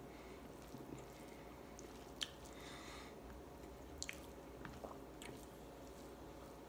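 Quiet eating sounds: rice in curry squished and mixed by hand on a plate, and chewed, with a handful of small wet clicks, the sharpest about two seconds in.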